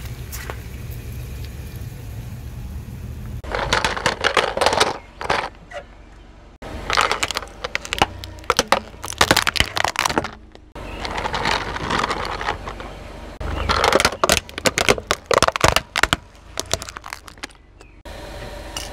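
Brittle objects cracking and crunching under a rolling car tyre, in four runs of dense crackling with abrupt starts and stops, over a car engine's low rumble. The first three seconds or so hold only the engine rumble.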